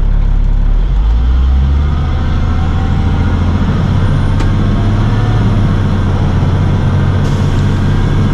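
Box truck's engine heard from inside the cab, pulling away from a standstill: idling at first, then rising in pitch about a second in as the truck accelerates, and running steadily under load.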